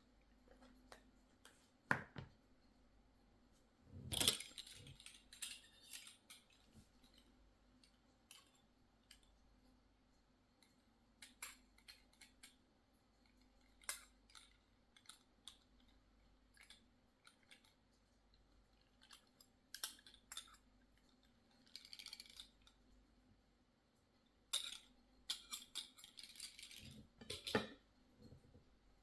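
Scattered light clicks and knocks of a kitchen utensil against a container and dish while cream cheese is portioned out onto the pizza, over a faint steady hum.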